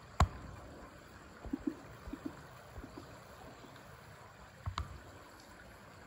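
Faint, steady rush of a small river flowing, with a sharp click just after the start, a few soft knocks and another click near the end.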